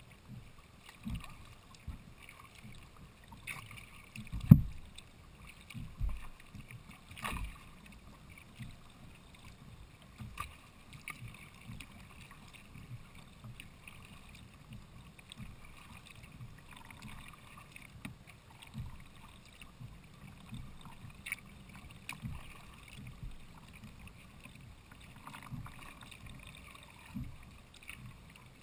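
Kayak being paddled on calm water: paddle strokes and water lapping against the hull, with irregular low knocks on the hull, the loudest about four and a half seconds in.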